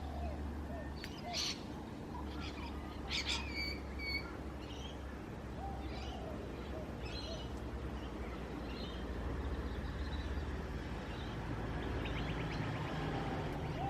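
Early-morning birdsong from several wild birds: short chirps and whistled notes at different pitches, scattered through, with a quick rattling call near the end, over a steady low hum.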